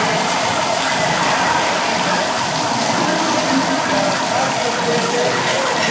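Water jets from fire hoses spraying and splattering in a steady rush.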